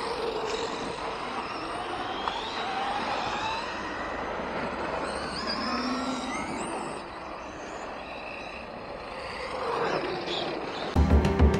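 Electric motors of several radio-controlled trucks whining, their pitch rising and falling as they speed up and slow down, over a hiss of tyres on dirt. Loud music cuts in near the end.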